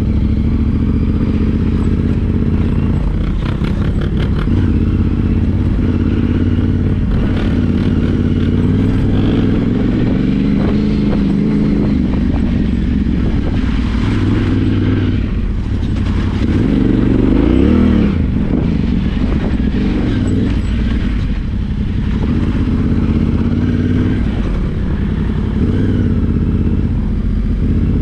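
Yamaha Ténéré 700's parallel-twin engine running under load off road, its pitch rising and falling with the throttle, with a rev up and back down about two-thirds of the way through. Rattling clatter from the bike over rough ground comes in bursts, most clearly a few seconds in.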